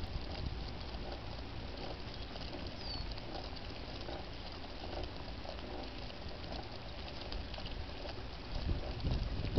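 Dogs' paws and claws pattering on asphalt as three harnessed dogs trot pulling a dog cart, over the rolling of the cart and a low rumble of wind on the microphone that grows louder near the end.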